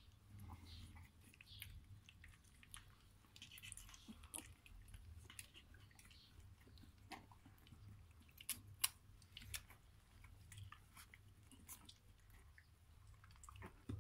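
Faint wet smacks and clicks of young kelpie puppies suckling and mouthing, scattered irregularly, with a few sharper clicks a little past the middle.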